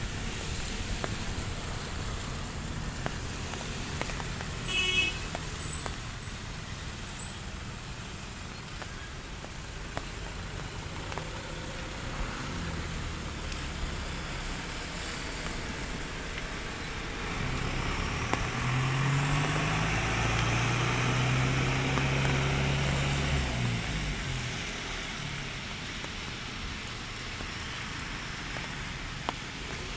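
A steady hiss of drizzle, with a car passing on the wet road: its engine hum and tyre swish swell up from about 17 seconds in and fade out by about 25 seconds. Four short loud sounds come between about 4 and 7 seconds in.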